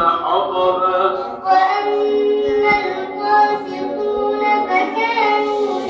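Children's voices chanting Quranic recitation in a melodic style, holding long drawn-out notes that glide from one pitch to the next.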